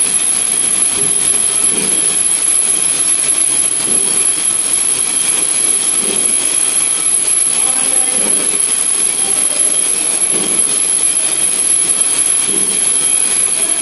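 Wire nail making machine running steadily, a loud, even mechanical din.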